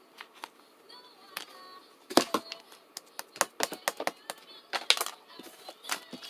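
An irregular run of sharp clicks and taps, sparse at first and then quick and louder from about two seconds in, like typing or tapping.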